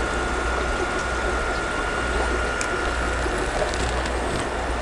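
Steady running noise of aquarium equipment: water bubbling and splashing from filters over a low pump hum, with a faint high steady whine that fades out about three seconds in.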